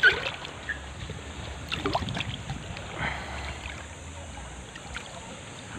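Wind rumbling on the microphone over gentle lapping of shallow seawater. A short, louder sound comes right at the start, and a few brief higher sounds come about two seconds in.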